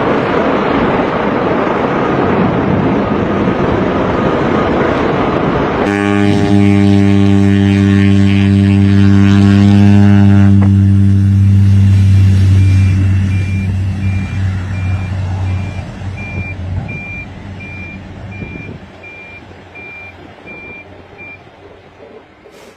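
A heavy engine running loud, first as a dense rushing noise. About six seconds in it changes abruptly to a steady low drone, which fades away over about ten seconds. A regular beeping starts near the middle and stops shortly before the end.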